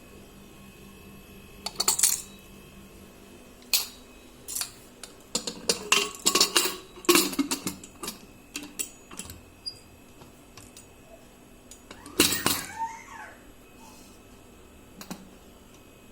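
Pressure cooker lid being fitted and locked shut: irregular metal clinks, knocks and clatter, thickest about five to eight seconds in, with a loud clank about twelve seconds in.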